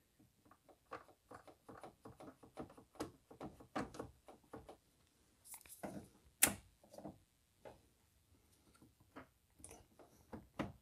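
Faint plastic creaks, taps and clicks as a BMW E46 coolant expansion tank is handled and pressed into its plastic holder, with one sharper click about six and a half seconds in.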